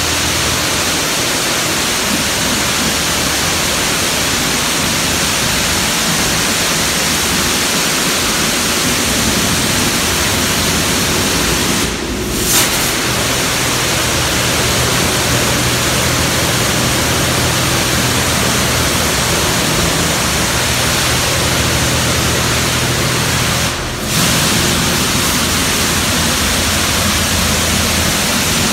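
High-pressure water spray from a D&S Super 5000 car wash blasting over a car: a loud, steady hiss over a faint low hum. The spray briefly drops out twice, about twelve and twenty-four seconds in.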